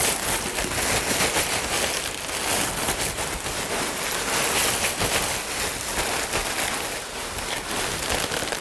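Dry trail mix of cereal, pretzel sticks, chocolate candies and mochi crunch being shaken inside zip-top plastic storage bags to mix it: a steady rattle of many small clicks with plastic rustling.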